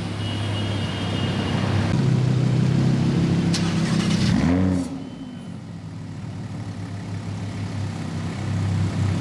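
Lamborghini engine running as the car drives through, growing louder, with a short rev about four and a half seconds in, then quieter as it moves off; another engine builds again near the end.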